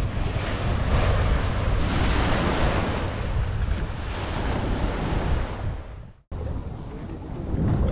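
Small waves washing onto a sandy beach, with strong wind buffeting the microphone. The sound cuts out abruptly about six seconds in, then wind noise on the microphone starts again.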